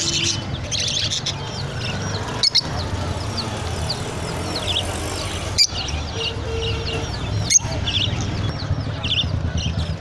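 Many caged budgerigars and lovebirds chirping in quick, short calls over a steady low background rumble, with three sharp clicks spread through it.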